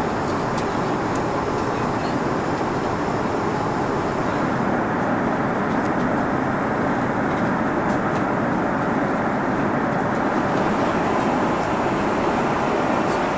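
Steady cabin noise inside an Airbus A330 in flight: an even rush of airflow and engine noise.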